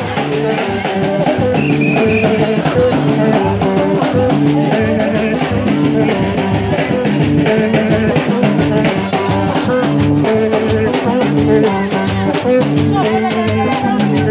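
Lively dance music with a steady drum beat and shaken rattles over a repeating bass line.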